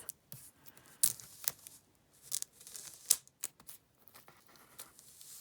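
Plastic wrapping being torn open and crinkled off a DVD box set, in irregular rips and crackles.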